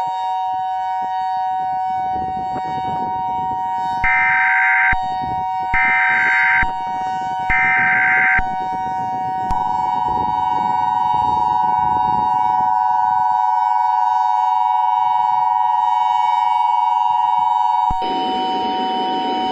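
Civil defense warning siren sounding at a steady pitch, two notes together, with three short louder bursts of a higher tone about four, six and eight seconds in. A rougher noise joins near the end.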